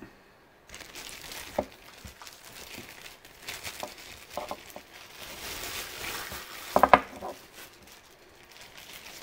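Clear plastic bag crinkling as a desk lamp is unwrapped and pulled out of it, with a few sharp clicks and knocks. A quick cluster of them about seven seconds in is the loudest.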